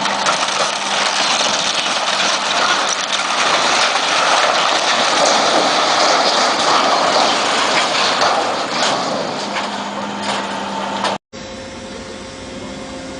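Heavy excavator at work: its engine running hard with scattered metallic clanks. About eleven seconds in the sound breaks off and a quieter steady hum follows.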